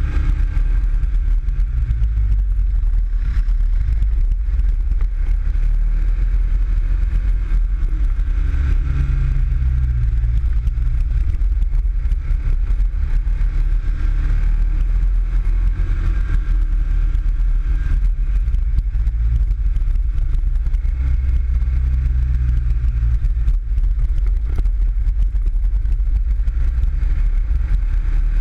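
Onboard sound of a PGO 500i off-road buggy's engine running steadily as the buggy drives up a dirt trail, the engine note rising and falling a little with the throttle.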